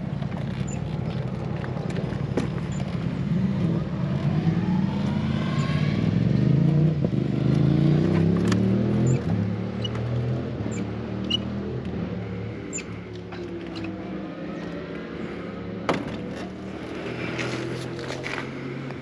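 Sport motorcycle engine running under way: the revs climb steadily for about four seconds, then fall away and settle at a lower, steady pitch.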